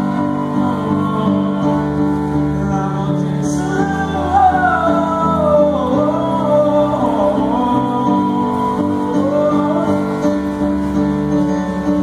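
A man singing a slow song to his own grand piano accompaniment, amplified through the stage speakers: held piano chords under a sung melody that rises and falls in long phrases.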